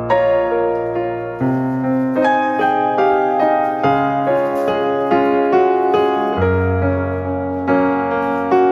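Background piano music: a gentle melody of evenly paced notes over sustained low bass notes.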